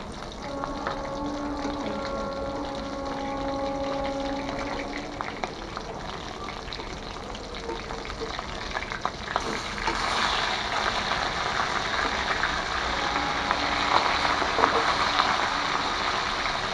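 Fish pieces shallow-frying in hot oil in a wok, a steady sizzle with crackles and spatula scrapes as the pieces are turned. The sizzle grows louder about ten seconds in. Over the first five seconds a steady pitched tone is also heard.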